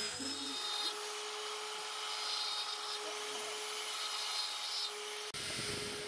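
Electric angle grinder running and grinding into wood, with a steady whine and two harder bites as the disc is pressed in. Near the end the sound changes abruptly to a smaller rotary carving tool working fine detail.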